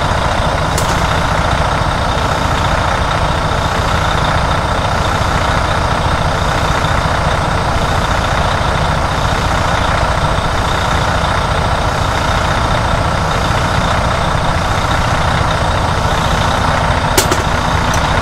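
Diesel semi-truck engine idling steadily, heard from underneath the truck, while its air compressor builds up air tank pressure. Two brief clicks, one about a second in and one near the end.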